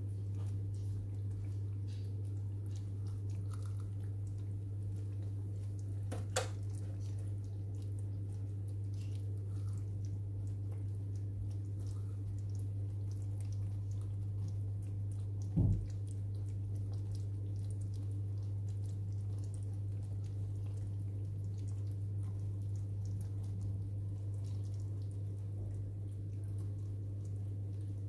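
A steady low hum, with faint scattered pops from thick chili con carne simmering in a pan. There is a sharp click about six seconds in and a dull thump a little past halfway.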